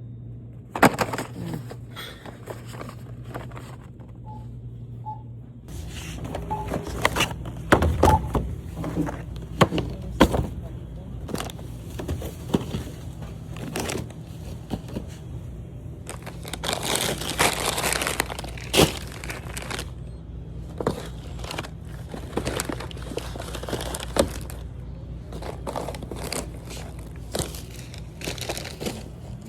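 Groceries being handled: irregular knocks and thuds of items set down, with plastic packaging crinkling, over a steady low hum.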